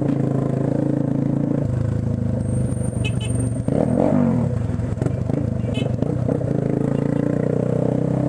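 Motorcycle engine running at low speed in traffic, its note changing with the throttle about a second and a half in and falling away again around the middle.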